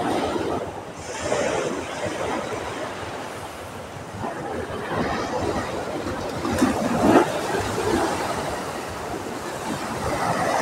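Small waves breaking and washing up a sandy, pebbly beach, the rush of surf swelling and falling.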